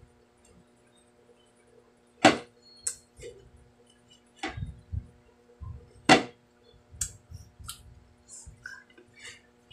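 A ceramic plate knocking against a wooden table as a banana on it is bitten without hands. Two sharp knocks, about two seconds in and about six seconds in, with softer clicks and clinks between.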